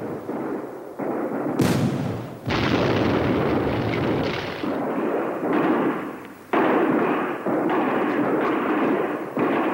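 Artillery fire and explosions in a string of blasts, each starting suddenly and trailing into a long rumble, with one sharp crack about one and a half seconds in.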